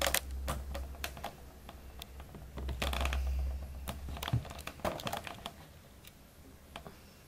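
Handling noise from a camera being repositioned on its mount: a low rubbing rumble with scattered clicks and taps, dying away over the last couple of seconds.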